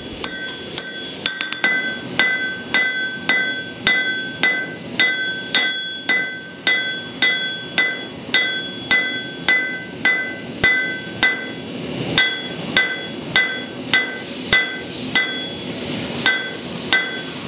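Hand hammer striking a red-hot leaf-spring steel knife blade on an anvil, forging in the Bowie's bevel and tip: steady blows about two a second, each with a bright metallic ring from the anvil.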